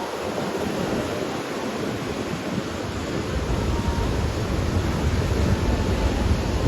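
Sea waves washing on a sandy beach in a steady hiss of surf, with wind buffeting the microphone. The low wind rumble is weak at first and grows heavy about halfway through.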